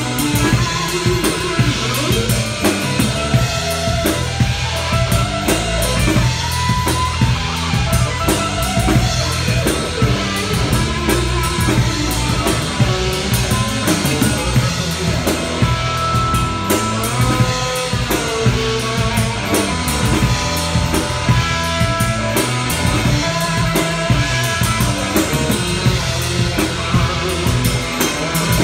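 Live instrumental rock trio: electric guitar playing bending, sliding lead lines over a steady drum kit beat and electric bass.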